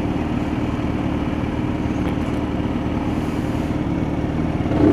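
Kawasaki Z900 inline-four engine idling steadily at a standstill. Its pitch starts to rise right at the very end as the throttle opens.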